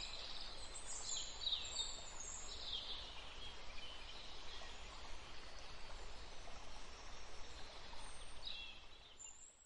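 Outdoor ambience: small birds chirping and twittering over a steady low hiss, fading out near the end.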